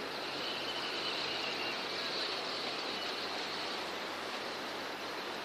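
A large flock of sandpipers in flight low over the water makes a steady rushing hiss. A brighter, high twittering swells about half a second in and fades after about three seconds.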